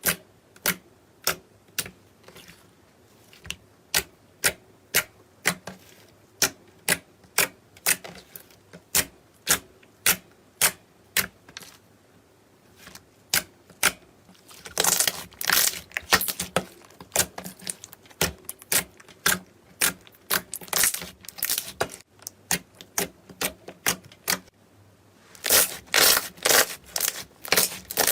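Slime being pressed and worked by hand, giving sharp clicking pops about twice a second, with denser crackling runs about halfway through and near the end.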